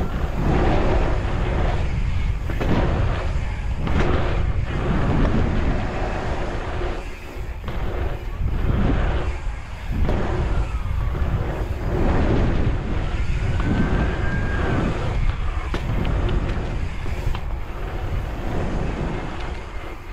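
Bicycle tyres rolling fast over the asphalt of a pumptrack, with wind buffeting the microphone. The rushing noise swells and fades every second or two as the bike pumps through the rollers and berms.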